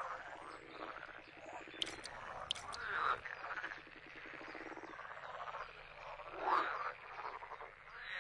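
A chorus of frogs croaking: overlapping rattling calls that swell and fade, with two short clicks about two seconds in.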